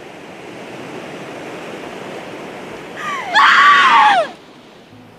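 Sea waves breaking on a beach in a steady rush of surf. About three seconds in, a loud high cry that rises and falls in pitch, lasting about a second and stopping abruptly.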